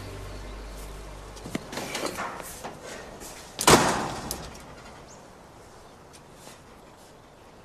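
Several knocks and clatters, then one loud slam about three and a half seconds in, ringing out briefly. A low drone fades away in the first second and a half.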